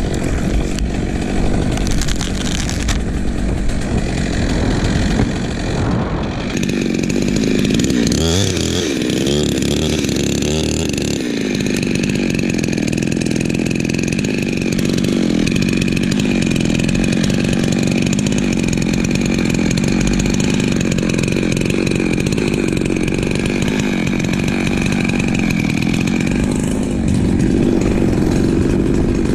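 Chainsaw running steadily, its engine pitch shifting up and down for a few seconds about a third of the way in, then settling into an even drone.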